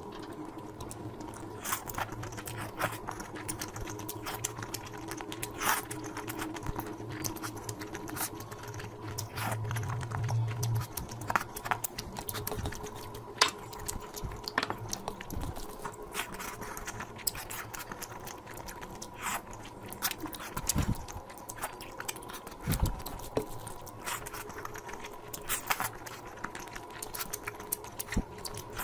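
Close-miked eating of curry: irregular wet chewing, smacking and clicking mouth sounds over a steady low hum.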